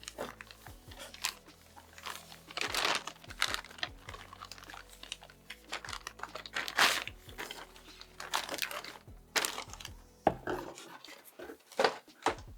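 Irregular crinkling and rustling of plastic packaging, with a few louder crackles and knocks, as a motherboard is unpacked and handled.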